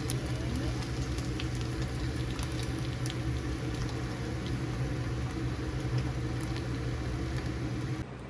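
Eggs frying in a pan, a steady sizzle with scattered crackles over a constant low hum. The sound drops away suddenly just before the end.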